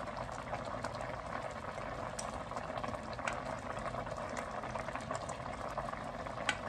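Pot of cassia-leaf curry at a rolling boil, bubbling steadily, with a few light clicks and plops as pieces of fried pork belly are dropped in with tongs.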